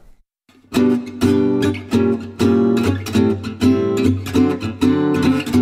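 Title music: a guitar strumming chords in a steady rhythm, starting after a brief silence of under a second.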